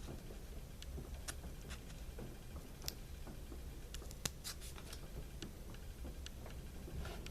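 Light, irregular clicks and rustles of small plastic toy parts being handled, over a low steady hum. A sharper click comes about three seconds in and another a little after four seconds.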